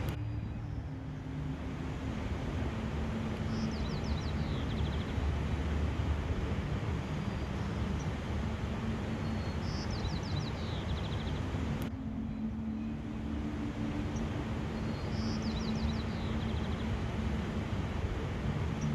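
Steady outdoor rushing noise with a low rumble and a faint hum, over which a bird gives a short, high, descending trill three times, about every six seconds.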